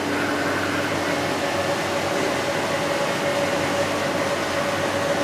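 AMC 1500H crankshaft grinder running steadily while its workhead turns a 305 Chevrolet crankshaft over for a runout check on a dial gauge. The machine gives a steady hum whose note shifts higher about a second in.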